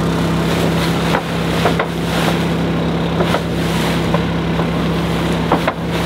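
A steady, low machine hum with a single held pitch, with scattered light taps and rustles as nylon spinnaker cloth is handled.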